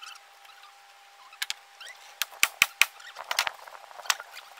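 Sharp knocks on the wooden framing beams: a quick run of four loud ones about two seconds in, a few more soon after and a last one near the end, with faint squeaks and creaks in between.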